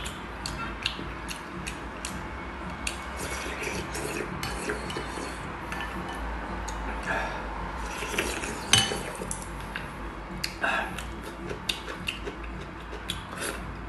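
Eating sounds: chewing, with irregular clicks and clinks of chopsticks and a spoon against plates and a glass bowl.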